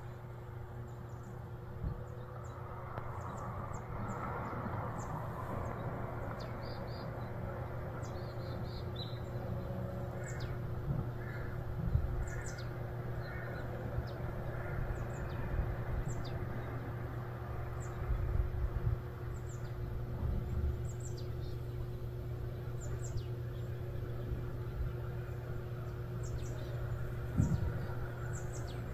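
Outdoor ambience of wild birds chirping, with many short high chirps throughout and a run of repeated calls about halfway through, over a steady low hum. A few brief low knocks are also heard.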